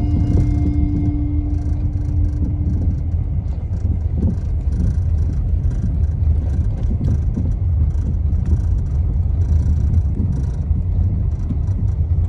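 Car driving on a road, heard from inside the cabin: a steady low rumble of road and engine noise. The tail of a held music note fades out in the first few seconds.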